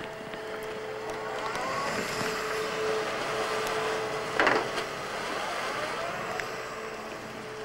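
Sennebogen hydraulic excavator running as it digs and lifts wet mud, with a steady whine over the engine noise. A brief, loud burst of noise comes about four and a half seconds in.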